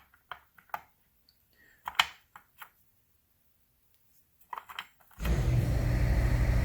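A few light, scattered clicks, then about five seconds in an air compressor kicks on and runs steadily with a loud low hum.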